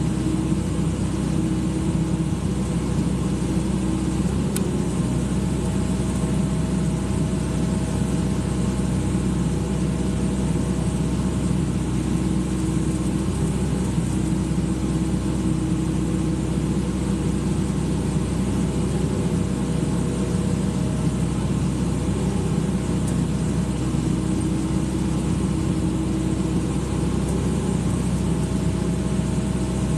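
Excavator's diesel engine running steadily, with a constant pitch throughout.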